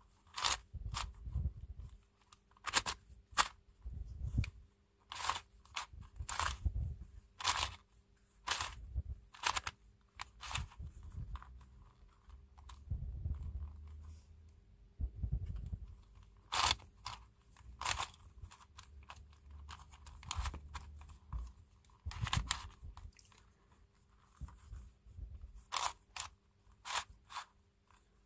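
Flat 2x4x6 cuboid twisty puzzle being turned by hand: its plastic layers click and scrape in irregular turns, a few a second, with a short lull midway. The turning is stiff and rough.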